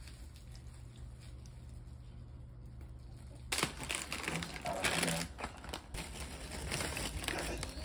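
A plastic snack bag crinkling as it is handled and shaken, with crunchy potato snack sticks pouring out of it onto a plate. It starts suddenly about halfway through, after a low steady hum.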